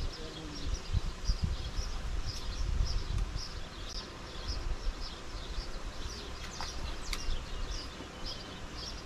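Outdoor pond-side ambience: a small creature chirping over and over at a high pitch, about two short chirps a second, over a low rumble.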